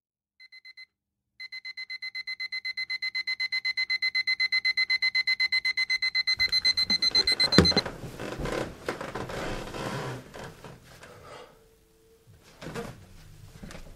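Electronic alarm clock beeping: a few short faint beeps, then rapid high-pitched beeps about eight a second that grow steadily louder for about six seconds. A single loud thump comes and the beeping stops, followed by rustling and a few knocks of someone moving about.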